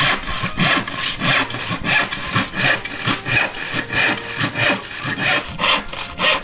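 Handsaw cutting through a sheet of plywood, the blade rasping back and forth in steady strokes about twice a second.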